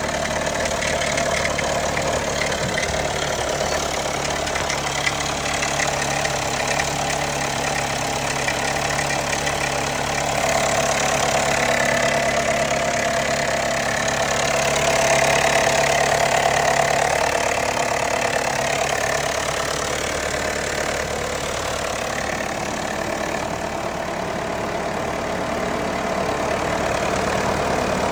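A Jeep Wrangler JL's 2.0-litre turbocharged four-cylinder engine idling just after a cold start, with a rattle from the engine. The rattle was cured by replacing both tensioners.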